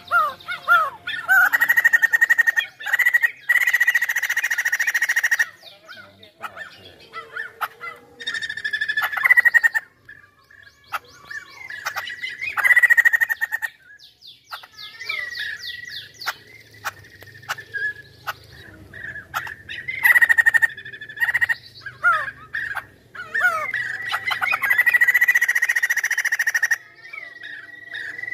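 White-crested laughingthrush singing loudly in repeated bursts of rapid, harsh chattering notes, each a few seconds long with short pauses between, over a steady held high note.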